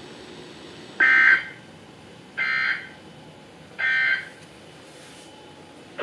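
EAS end-of-message signal received over NOAA Weather Radio and played through a RadioShack weather radio's speaker: three short buzzy data bursts about a second and a half apart, the first loudest. It marks the end of the tornado warning broadcast.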